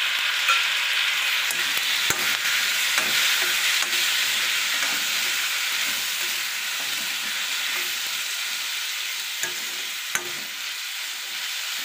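Chopped tomatoes sizzling in hot oil with onions and chillies in a steel kadai, stirred with a metal spoon that scrapes and clicks against the pan now and then. The sizzle is loudest at first and eases off slowly.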